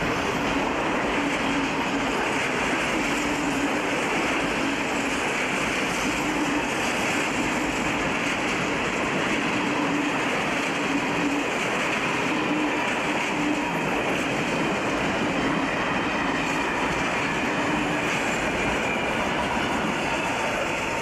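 Freight train wagons rolling past on curved track: a steady, continuous rumble of wheels on rail.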